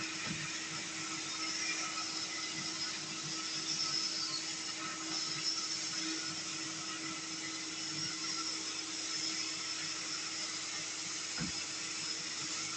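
Airstream corded vacuum cleaner running steadily with the narrow crevice nozzle fitted, a constant motor whine over rushing suction air, with a single knock about 11 seconds in.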